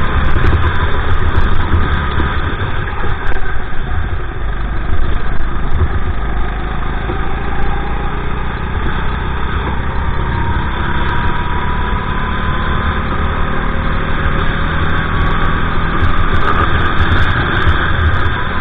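Honda GX390 single-cylinder four-stroke kart engine running hard at speed, its note slowly rising and falling through the corners, with heavy wind noise on the onboard microphone.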